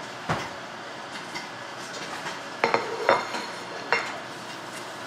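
Kitchen dishes and utensils clinking and clattering: a handful of sharp knocks, the loudest coming in a quick cluster between two and a half and three seconds in, one of them ringing briefly.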